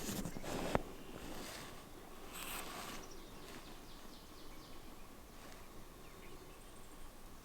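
Open-field ambience with faint, scattered bird chirps over a steady background hiss, broken by one sharp click under a second in.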